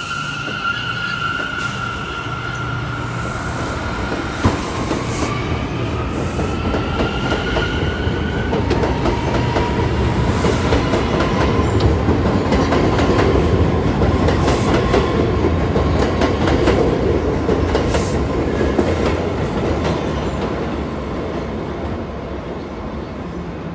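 New York City Subway train on the elevated J/M line running through the station. Its wheels squeal in steady high tones for the first several seconds, with clicking over the rail joints. The rumble and rattle grow louder toward the middle and then ease off near the end.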